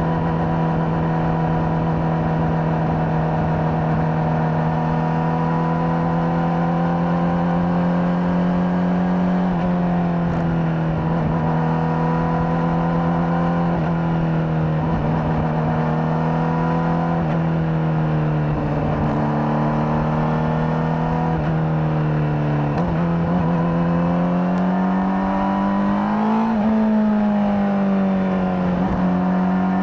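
Honda CBR600RR's inline-four engine with its stock exhaust, running at a steady cruise. Its pitch eases slowly down through the middle, then climbs again in the last few seconds with one short dip.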